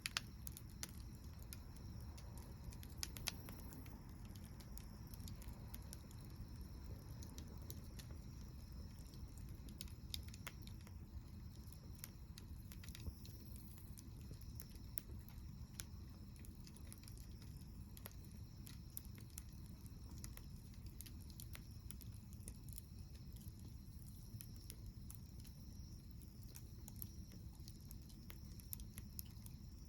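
Wood campfire crackling, with irregular sharp pops and snaps, a few louder ones near the start and about ten seconds in, over a low steady rumble.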